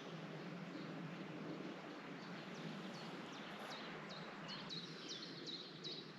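A small bird singing a series of short, high, downward-sweeping notes that come faster and faster, over a steady background hiss of outdoor ambience.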